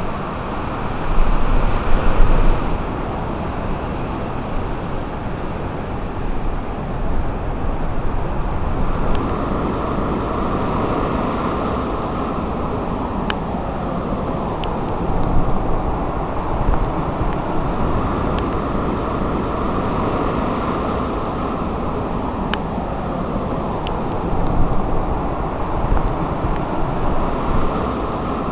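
Steady rushing of wind and breaking surf on the shore, with a louder gust buffeting the microphone about a second in.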